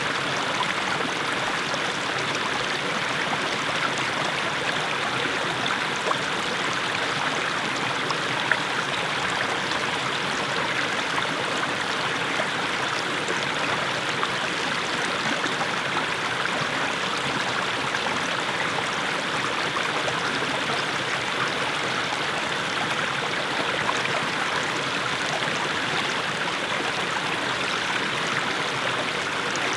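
Small mountain stream splashing down over low steps of mossy stones: a steady, even babble of running water.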